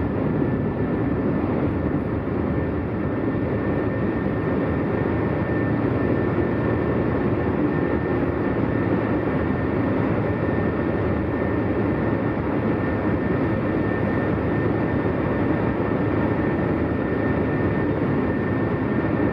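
2020 Hyundai Tucson driving at a steady speed: an even rush of tyre, road and engine noise, with a faint steady high whine.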